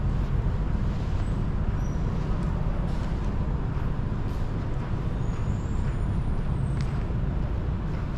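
Steady low rumble of outdoor city background noise, with a few faint, brief high squeals about five to six seconds in.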